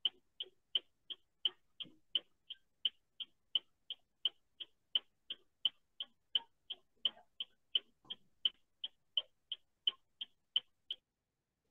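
A steady, faint ticking of short, evenly spaced clicks, about three a second, that stops near the end.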